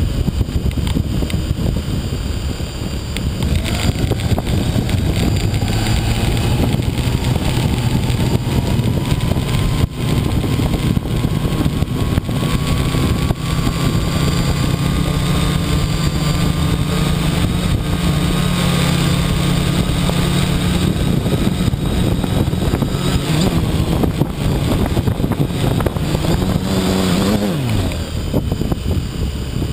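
Quadcopter's electric motors and propellers spinning, with a whine that climbs slowly in pitch from a few seconds in and then holds. About two seconds before the end the motors spin down with a quickly falling whine.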